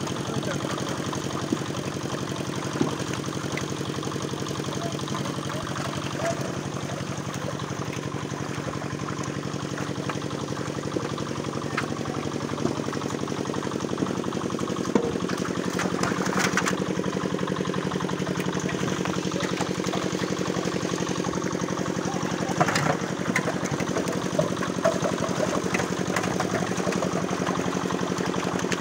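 An engine running steadily at an even speed, with scattered splashes from fish thrashing in the water.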